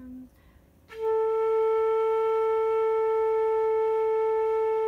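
Flute playing one long, steady held note that begins about a second in: a long-tone exercise in holding each note as long as possible.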